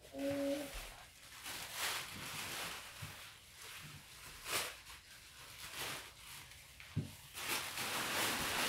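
Tissue paper rustling and crinkling as it is handled and pushed into a paper gift bag, coming in several spells with the loudest near the end.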